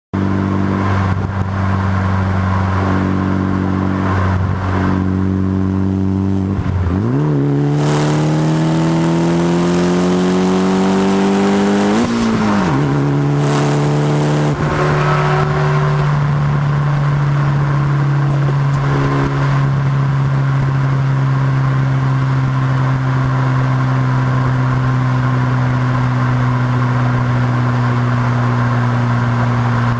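Mitsubishi Lancer Evolution X's turbocharged 2.0 L inline-four running through an aftermarket Lite Spec titanium exhaust. It holds a steady low note, then accelerates with the pitch climbing for about five seconds. The note drops abruptly near the middle, as at a shift or lift-off, and then it cruises at a steady, somewhat higher note.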